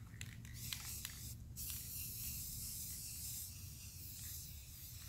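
Aerosol spray-paint can hissing as paint is sprayed on, in a long spray with a brief pause about a second and a half in.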